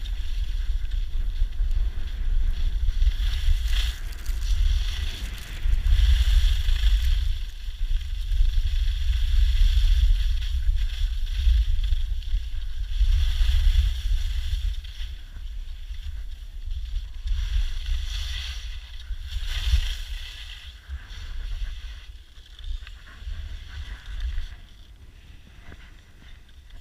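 Wind buffeting the action camera's microphone during a fast ski run, a heavy rumble that swells and fades in waves, with the hiss of skis sliding on packed snow. It dies down in the last few seconds.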